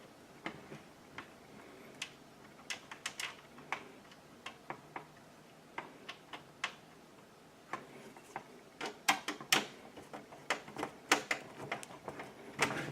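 Irregular light metallic clicks and taps of a Phillips screwdriver and screws being worked into the power supply's mounting holes on a PC case, coming thicker and louder about two-thirds of the way through.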